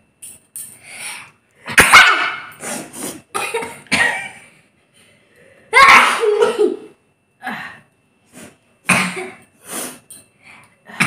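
People sneezing and coughing one after another: two loud sneezes about two and six seconds in, with a series of shorter coughs and sneezes around them.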